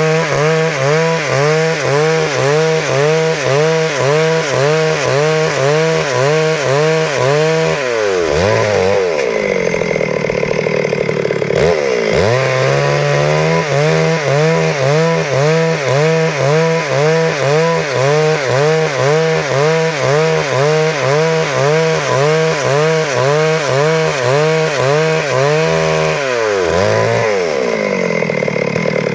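Stihl MS 382 two-stroke chainsaw cutting through wood at high revs, its engine note wavering up and down about twice a second under load. Twice, about a third of the way in and near the end, the note drops and swings before settling back into the cut.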